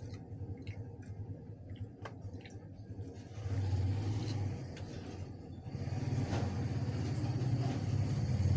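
Low steady rumble, like a vehicle engine running close by, getting louder about three and a half seconds in and again after six seconds. In the first three seconds there are light clicks and taps from a styrofoam takeaway box being opened and handled.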